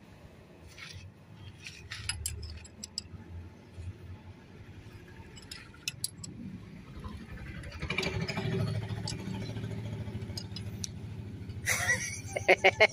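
Scattered light metallic clinks of spanners and nuts being handled on a tractor's differential housing, over a low rumble like an engine running nearby that builds from about two thirds of the way in. Near the end a loud, fast pulsing sound starts, about four to five pulses a second.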